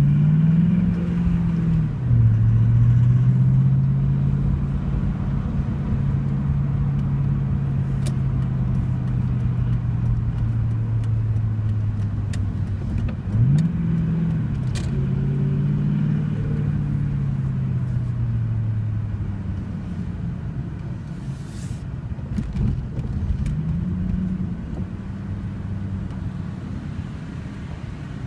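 1996 Mustang GT's 4.6-litre V8, fitted with PI heads, running under way over steady road rumble. The engine note climbs, drops about two seconds in, holds steady while cruising, rises briefly around the middle and then falls slowly, picking up again near the end. This is the car whose noise while cruising is being chased after the PI swap.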